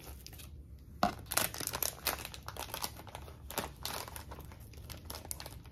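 Packaging crinkling and rustling as it is handled, in irregular scrunches, loudest about a second in.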